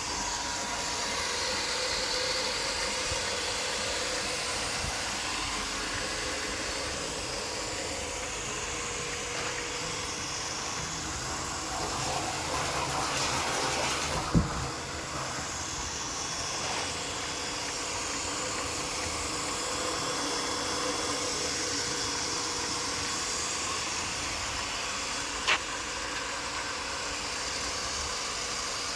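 Commercial reverse-osmosis water filter plant running: a steady motor hum with water rushing through. There are two sharp clicks, one about halfway through and one near the end.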